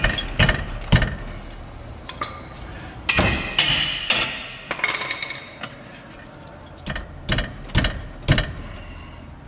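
Steel 14 mm combination wrench clinking and knocking against a brake caliper bolt and bracket as the bolt is worked loose by hand, with a brief scraping metallic stretch around three seconds in.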